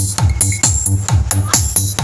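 Electronic dance music with a fast, steady kick drum and bright synths, played loud through a speaker box built from an 8-inch woofer, a 4-inch midrange and a tweeter wired in parallel.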